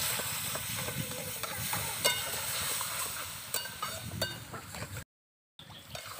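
Semolina and milk sizzling in a hot aluminium pan while a metal spatula stirs and scrapes it, with sharp metallic clicks that ring briefly. The sound breaks off completely for half a second near the end.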